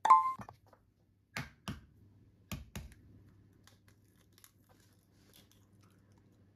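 Egg tapped sharply on the rim of a stainless steel mixing bowl, which rings briefly, then the eggshell cracking as it is pulled apart: two pairs of sharp cracks about a second apart, followed by faint small clicks.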